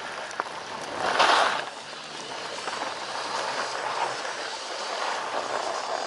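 Skis hissing as they slide over snow, with a louder scrape about a second in.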